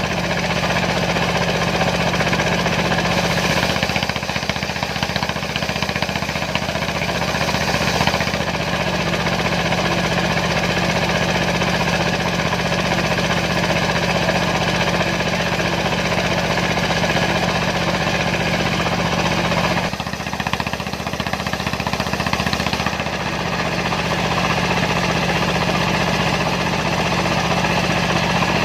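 A Dongfeng diesel engine driving a homemade circular sawmill as it cuts sengon wood, running steadily and loudly with a dense mechanical clatter. The sound dips briefly about four seconds in and again around twenty seconds in, then picks back up.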